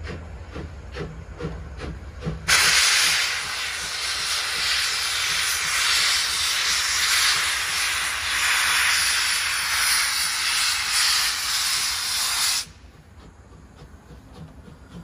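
Narrow-gauge steam locomotive venting steam in a loud, steady hiss that starts suddenly about two and a half seconds in and cuts off suddenly about ten seconds later. Before and after it, faint regular beats over a low rumble.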